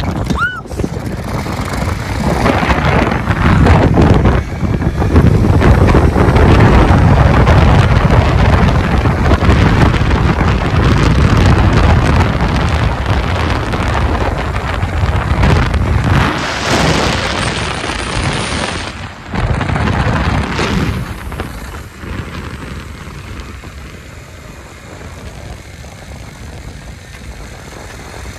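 Wind buffeting the microphone during a fast zip-line descent, loud and dense, with a brief high whine about two-thirds of the way through; it eases off near the end as the rider slows toward the landing platform.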